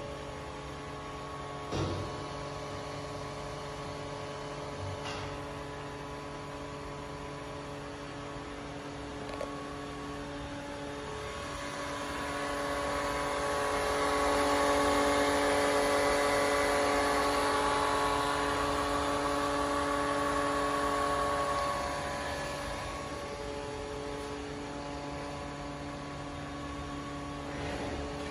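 Ruhle MGR 400 vacuum mixer running: a steady electric hum with several held tones. It grows louder for several seconds in the middle, when its vacuum pump is close to the microphone.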